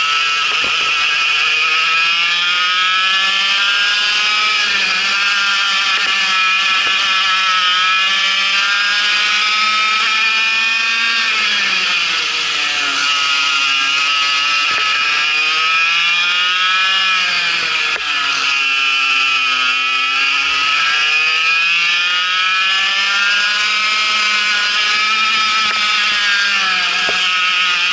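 Vortex MiniRok 60 cc two-stroke kart engine running hard at racing speed, heard from on board the kart. Its pitch climbs along the straights and falls away into the corners, with the deepest drops about twelve and nineteen seconds in.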